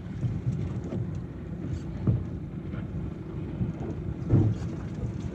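Wind buffeting the microphone as a steady low rumble, with a couple of soft bumps about two and four seconds in.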